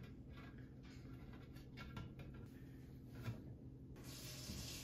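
Faint small dabs and rustles of gloved hands pressing wet drywall joint tape and compound onto a plaster swan, over a low steady hum. A steady hiss comes in about four seconds in.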